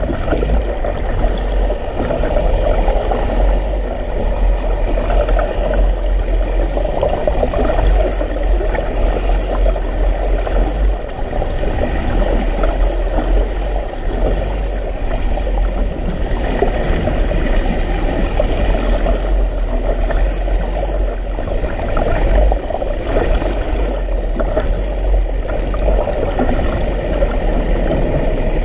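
Steady rush of water streaming past an underwater GoPro housing as it moves slowly through the sea, with a deep rumble underneath.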